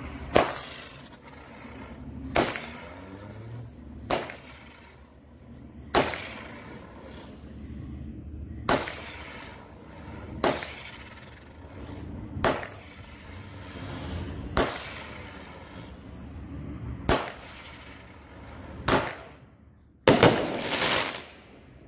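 Consumer aerial firework cake firing in sequence: a sharp bang about every two seconds, about ten in all, then a longer, louder burst near the end.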